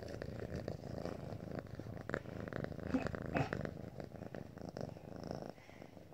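Domestic cat purring close to the microphone, with scratchy rustles as its fur brushes against the phone.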